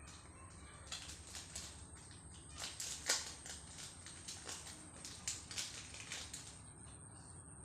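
Plastic packaging crinkling and rustling as it is handled and opened, in a run of irregular crackles that is loudest about three seconds in.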